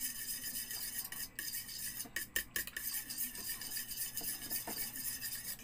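A utensil stirring and beating raw eggs mixed with calamansi juice in a bowl, scraping and clinking against its sides over a steady hiss.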